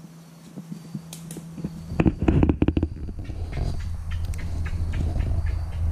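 Handheld camera being moved: a burst of rapid knocks and rustles about two seconds in. After it a low, steady rumble grows gradually louder.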